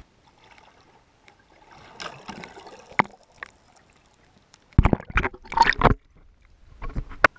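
Shallow river water gurgling and splashing around a camera held down over a pebble bed. About five seconds in comes a cluster of loud knocks and bumps as the camera is handled, with one sharp click near the end.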